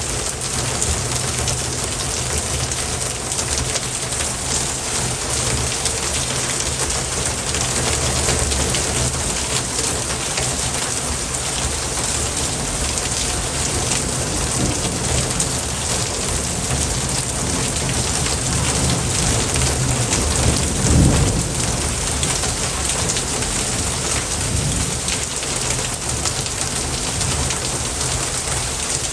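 Steady heavy rain, with a brief low rumble of thunder about twenty-one seconds in.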